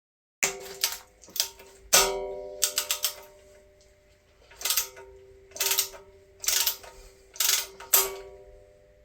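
Hand wrench working bolts on a Chevy 350 small-block: sharp metallic clicks, single and in quick groups of two or three, each leaving the engine's metal ringing with a clear tone that fades.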